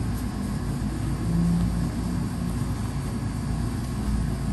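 Steady low mechanical rumble with a low hum, a little louder about a second and a half in, like a motor vehicle's engine running.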